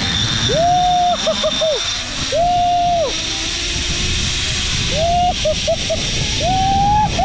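Zipline trolley running fast along the steel cable with wind rushing past the microphone. Over it, a clear high tone sounds in a repeating pattern: one long note followed by a few short ones, four times.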